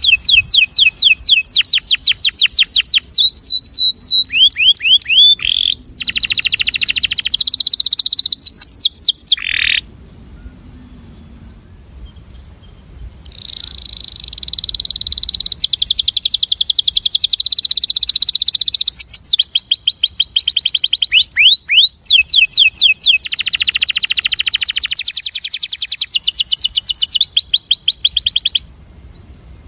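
Breeding male canary singing: fast trills of repeated sweeping notes changing from one roll to the next, breaking off for a few seconds near the middle and stopping shortly before the end.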